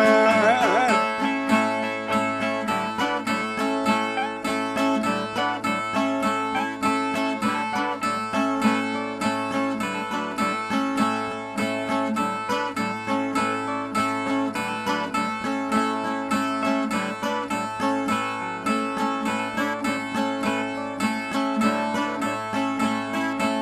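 Brazilian ten-string violas playing an instrumental interlude of quick, even plucked notes over ringing strings: the viola break between sung stanzas of a repente cantoria.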